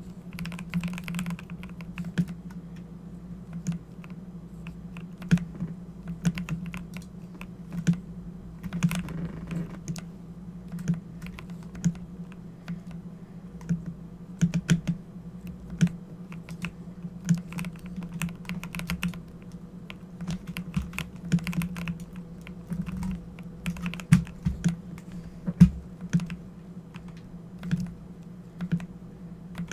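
Typing on a Corsair computer keyboard: irregular key clicks at an uneven pace, with a few louder strokes, over a steady low hum.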